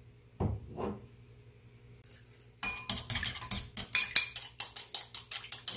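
Two knife strokes cutting through tofu onto a plastic cutting board, then eggs beaten briskly in a ceramic bowl, a metal utensil clinking against the bowl about five times a second.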